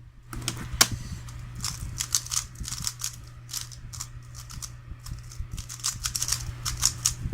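3x3 Rubik's cube being turned quickly by hand: a run of fast, irregular plastic clicks and clacks as the layers snap round, over a steady low hum.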